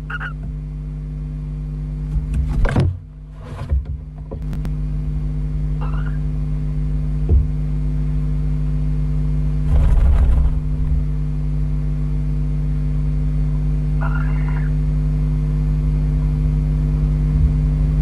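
Steady low electrical hum and rumble from a barn owl nest-box camera's microphone, with a few knocks and a brief scuffle of barn owls moving in the wooden box, and short faint calls about six and fourteen seconds in.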